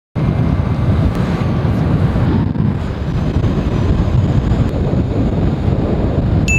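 Wind buffeting the microphone while filming from a moving car, heard as a loud, low, even rush that cuts in suddenly just after the start.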